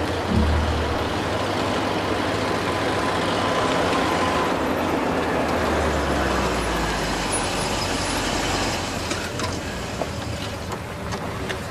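Engine of an old open-bed army lorry running steadily as it drives, with a constant hiss of engine and road noise.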